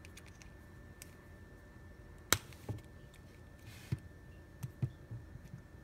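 Plastic action figure being handled as its head is swapped: a handful of small sharp plastic clicks and taps, the loudest a little over two seconds in, as one head comes off and the masked head is pushed onto the neck peg.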